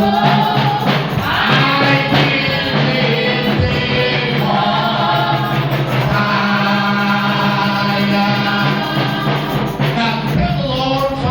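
Gospel music with voices singing over sustained keyboard or organ chords.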